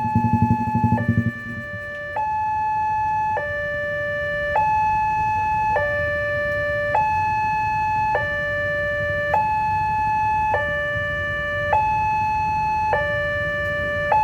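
Electronic two-tone warning siren at a railway level crossing, sounding continuously and alternating between a higher and a lower tone about every second and a quarter. Beneath it runs a low rumble, pulsing rapidly for the first second or so and then steady.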